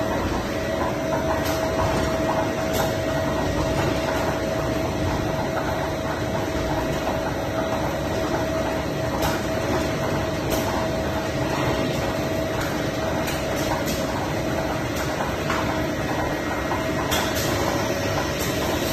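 Automatic steamed-bun production-line machinery running steadily: a constant mechanical din with a steady hum and a few faint light clicks.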